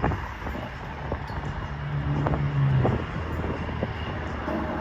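Street traffic: vehicles passing with a steady low rumble. One engine hum is loudest about two to three seconds in, and there are a few short clicks.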